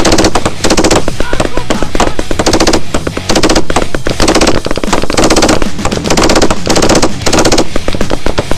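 Machine gun firing in repeated bursts, each about half a second to a second long, roughly one a second.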